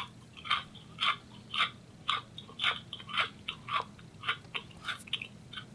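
Barbie Dreamtopia unicorn plush's sound chip, set off by a press on its head, playing a rhythmic run of short electronic sound effects through its small speaker, about two a second, growing fainter near the end.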